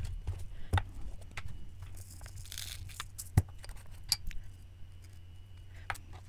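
Small craft supplies being handled: scattered light clicks and taps, with a brief crinkly rustle about two and a half seconds in, over a low steady hum.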